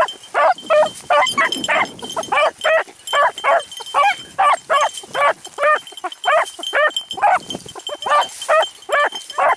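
Beagles baying, an unbroken run of hound barks coming about two or three a second, as a pack does when running a rabbit's trail.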